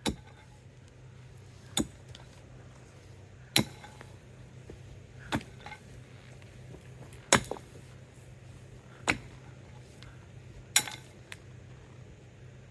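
Sharp knocks at an even pace, one about every two seconds and eight in all, over a faint steady low hum.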